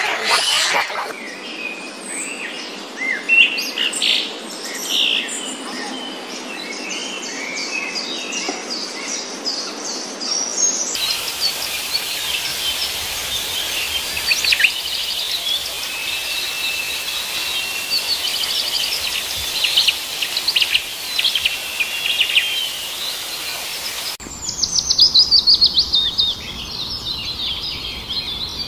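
Birds chirping and singing, high short calls over a natural background, with the soundscape changing abruptly a second in, about a third of the way through, and near the end. Just after the last change comes a loud, rapid run of chirps.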